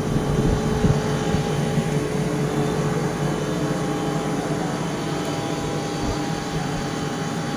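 A steady mechanical hum over an even rushing noise, with low rumbles coming and going.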